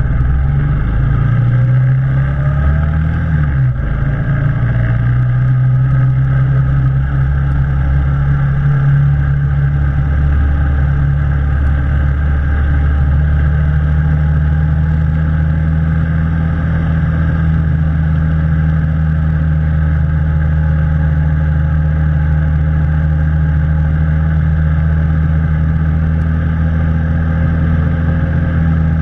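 ATV engine running while towing a sled over a snowy road. Its pitch wavers over the first few seconds, then settles into a steady drone that steps up slightly about halfway through and holds.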